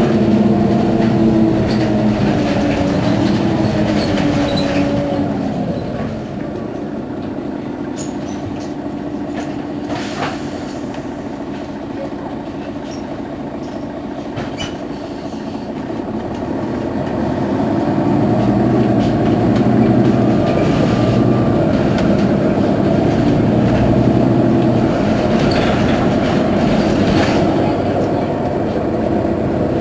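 Mercedes-Benz Citaro Facelift city bus engine running while the bus stands at a stop. Its drone eases off about six seconds in and swells again from about seventeen seconds in. There are a few sharp clicks, the clearest about ten seconds in.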